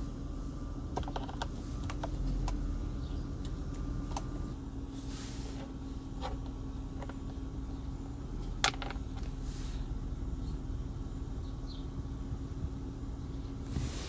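The 4.0 L V6 of a 2004 Toyota 4Runner idling with a steady hum. A few light clicks come in the first two seconds, and one sharp knock about two-thirds of the way through.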